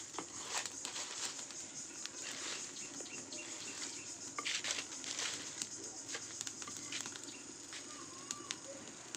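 Dry leaves burning in the firebox of a clay mud stove, crackling with many sharp pops. Leaf litter rustles as it is pushed into the fire with a stick at the start, with a few louder rustling surges.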